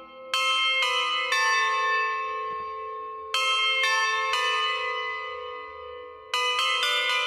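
Bells rung in a sequence: three strikes about half a second apart, a pause, three more, then a quicker run of four near the end, each note ringing on after it is struck.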